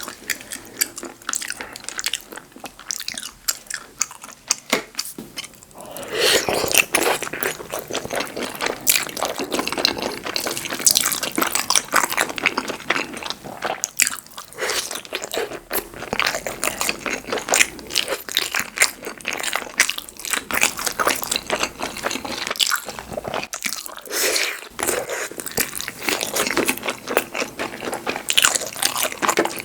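Close-miked eating sounds: a person biting, crunching and chewing food in quick, irregular strokes. The sounds are softer for the first few seconds and get busier and louder after that.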